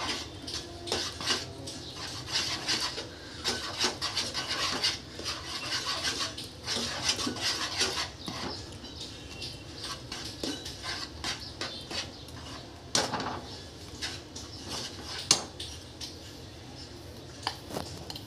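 A spatula stirring and scraping a thick, wet milk-powder and sugar mixture in a frying pan, with steady scrapes and knocks against the pan. The scraping is busy through the first half, then slows to a few sharper taps.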